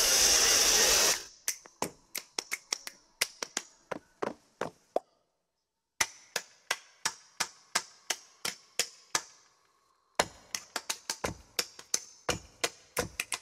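Routine soundtrack made of sharp percussive clicks and knocks, unevenly spaced at about two or three a second. It opens with a loud hiss that cuts off about a second in, and the clicks stop dead twice for a second or so.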